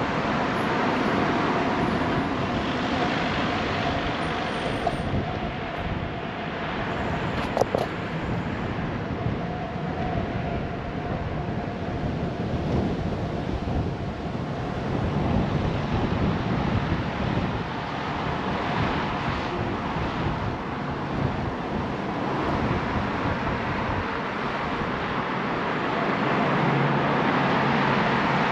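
Steady rushing road and wind noise from riding a bicycle through city streets, with traffic going by. A brief sharp click comes about seven and a half seconds in.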